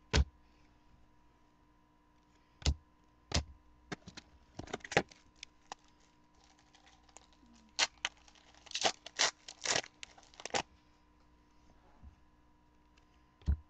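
2008 Leaf Rookies and Stars football cards being handled and flicked through by hand: scattered short snaps and rustles of card stock, coming thicker in the second half.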